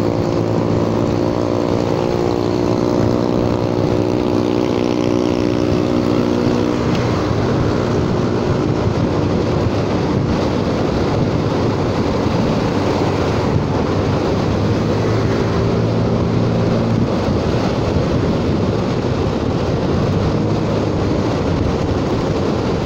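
Honda Forza 300 scooter's single-cylinder engine held wide open at high revs, a steady drone whose pitch stays nearly level, over heavy wind and road rush on the microphone. The engine note is plainest for the first several seconds, then sinks partly into the wind noise.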